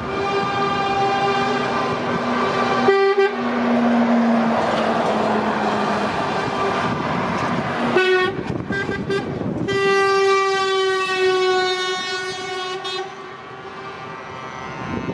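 Lorry air horns blowing long, held blasts over diesel engines and tyre noise as trucks drive past, with a run of short toots about eight seconds in. The horn pitch slides slightly lower as one truck goes by, and the sound fades near the end.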